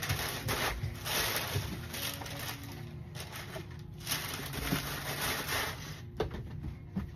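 Paper rustling and crinkling as a pair of sneakers is pulled out of a cardboard shoebox, handled and put back, in spells of rustle with a few light knocks of the shoes and box near the end.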